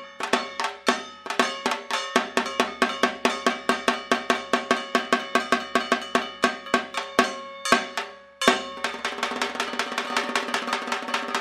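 Dhak drumming for Durga Puja, sharp ringing strokes that quicken about two seconds in, then break into a fast, continuous roll about eight seconds in.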